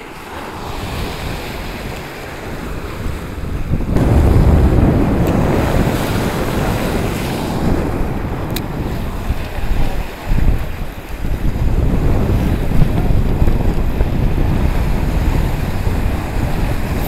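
Strong wind buffeting the camera's microphone over sea waves washing against the rocks of a breakwater, the wind getting louder about four seconds in.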